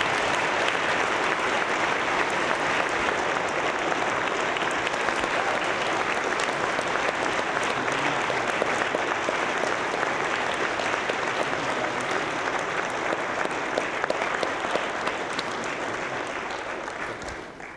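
A large audience applauding steadily, the clapping tapering off near the end.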